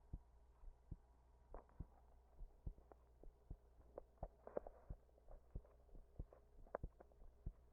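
Human heartbeat: a faint train of short, sharp thumps, unevenly spaced, over a low steady hum, with a brief rustle about four and a half seconds in. The uploader says the rhythm became irregular after a sleepless night and standing pressed against a wall.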